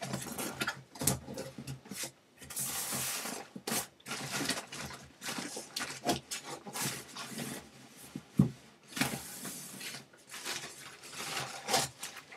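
Cardboard carton and plastic wrap rustling and scraping as a monitor stand is worked out of its box, with irregular knocks and one sharp knock about eight seconds in.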